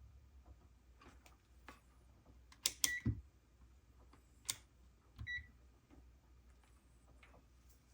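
Clicks and knocks of handling on a workbench, with two short high electronic beeps about two and a half seconds apart, typical of a digital multimeter's button or range beep while measuring a voltage.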